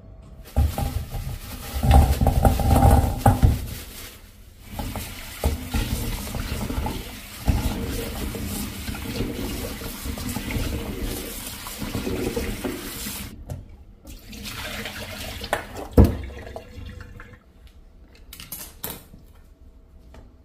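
Kitchen tap running into a stainless-steel bowl of chestnuts in a steel sink while hands rub them clean. The water cuts off suddenly about two-thirds of the way through. A shorter burst of water and a sharp knock follow.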